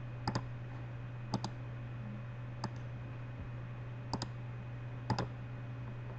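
Computer mouse clicking: five quick bursts about a second apart, most of them double clicks, over a steady low hum.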